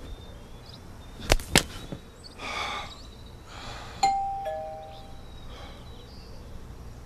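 Two sharp clicks, two short rushing noises, then a sharp hit that rings on as a bell-like ding, fading over about a second.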